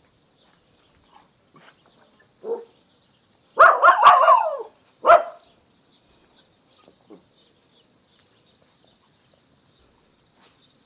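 Puppies yelping and whining: a short faint call, then a loud run of high, wavering yelps about three and a half seconds in and one more sharp yelp a second later.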